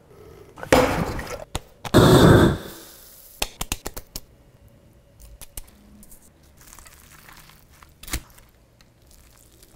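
Short food-preparation sounds from a steak sandwich being assembled on a wooden board: two noisy swishes in the first few seconds, the second the loudest, then a quick run of clicks and taps, faint rustling, and a single sharp knock about eight seconds in.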